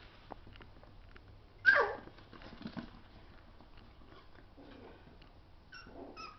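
Miniature schnauzer puppy giving one sharp yelp that drops quickly in pitch, a little under two seconds in, then two short high squeaks near the end, with faint clicks of claws on the wooden floor.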